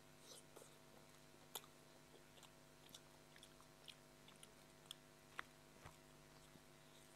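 Close-miked eating sounds: soft chewing and wet mouth clicks from eating fries, scattered irregularly, with a sharper click about a second and a half in and another just past five seconds.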